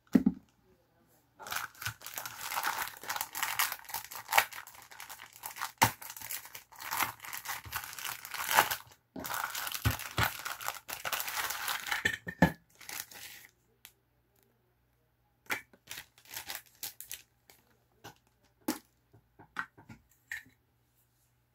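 Clear plastic kit bag crinkling and rustling as it is handled and pulled open. The rustle is almost continuous for about twelve seconds, then it breaks into a few short rustles and light clicks as parts are handled.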